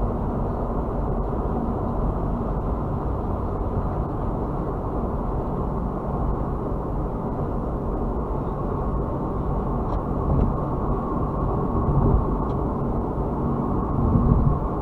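Steady, muffled road and engine noise inside a car cruising at freeway speed, with a few brief low swells late on.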